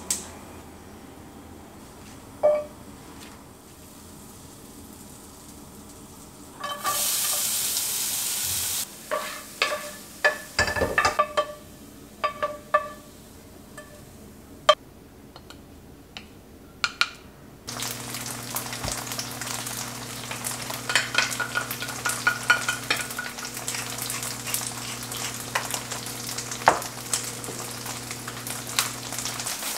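Food frying in a hot pan on a gas stove: a loud sizzling burst, then a wooden spatula knocking and scraping against the pan. In the last third a steady low hum runs under continuous crackling sizzle.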